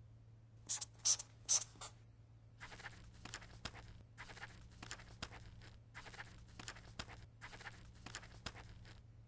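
Pen scratching on paper as a writing sound effect: four quick strokes about a second in, then steady scribbling in short runs from about two and a half seconds in until near the end. A faint steady low hum lies underneath.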